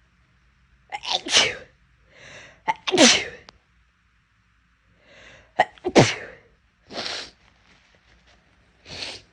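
Big, loud human sneezes, induced to clear an irritated nose: three in a row, each with a softer build-up just before it, followed by two softer bursts near the end.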